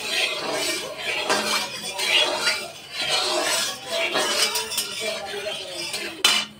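Flat metal spatula clinking and scraping against a metal kadai of heating oil, with a sharp knock near the end. Indistinct voices run underneath.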